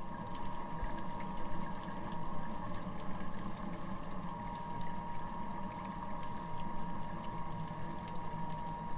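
Water running steadily from a tap into a stainless-steel sink: a constant splashing rush, with a thin steady tone through it.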